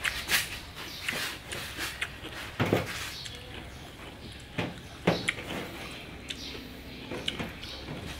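Dishes and utensils being handled during a meal: scattered sharp clicks and knocks, two louder ones near the middle, over a low steady hum.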